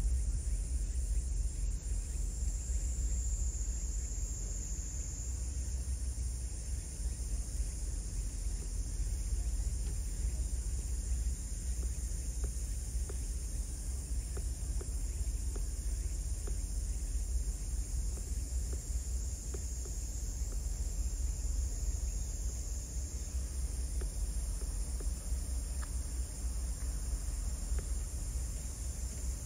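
Insects chirring steadily in a high band, swelling a little now and then, over a steady low rumble.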